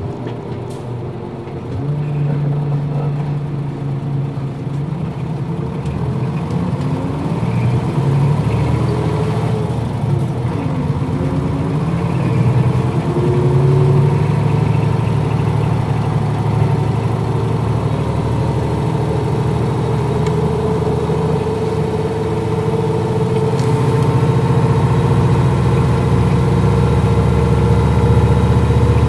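Nissan Diesel KL-UA452MAN city bus's diesel engine pulling away and accelerating, its note climbing in pitch in several steps as it works through the gears, then running steadily and louder near the end.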